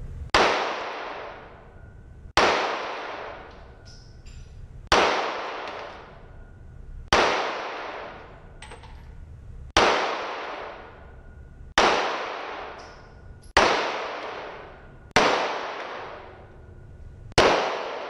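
Pistol shots fired one at a time at a slow, steady pace, nine in all, about every two seconds, each ringing and echoing off the walls of an indoor range.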